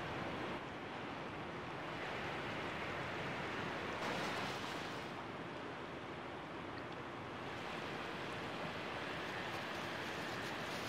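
Steady rush and lapping of moving river water, a little stronger about four seconds in.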